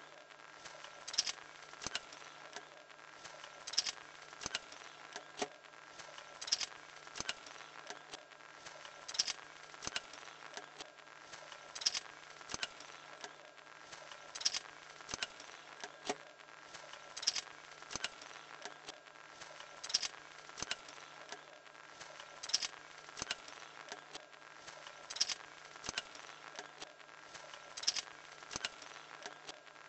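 Homemade wooden-stick drawing machine driven by a small electric motor: a steady faint motor hum under light clicking and rattling of the stick linkage, with a louder cluster of clicks recurring about every 2.7 seconds as the pencil arm runs through its cycle.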